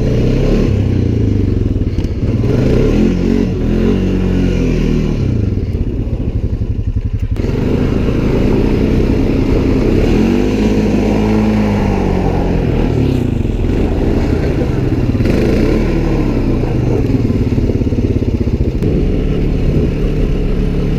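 Honda ATV engine revving up and down over and over, its pitch rising and falling every second or two as the rider works the throttle.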